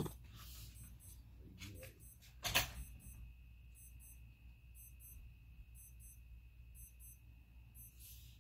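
A half-dollar coin scratching the coating off a scratch-off lottery ticket in a few faint last strokes, then one short sharp scrape about two and a half seconds in. After that it is mostly quiet, with a faint steady high-pitched tone underneath.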